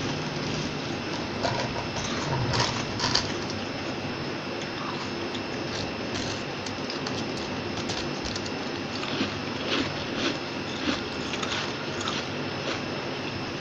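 Scattered soft crunches and crackles of fluffy freezer frost as a frost disk is handled, over a steady hiss. A few sharper crackles come a couple of seconds in, and a cluster comes near the end.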